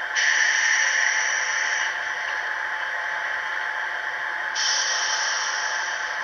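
113 series train sounds from an ESU LokSound V4 sound decoder, heard through the model's small 28 mm speaker: two bursts of air hissing, the first lasting about two seconds and the second starting about four and a half seconds in, over a steady noisy hum.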